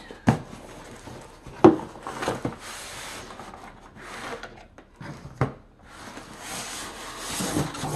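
Cardboard box being opened and unpacked: flaps scraping and rubbing, foam-packed parts in plastic bags rustling. A few sharp knocks come through it, the loudest about a second and a half in.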